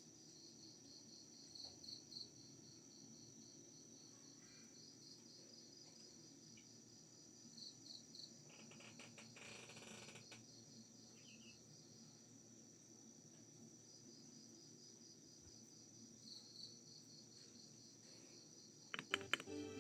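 Faint, steady chirping of crickets, pulsing evenly in the background. Just before the end a short quick run of sharp clicks, typical of keys being pressed on a mechanical keyboard.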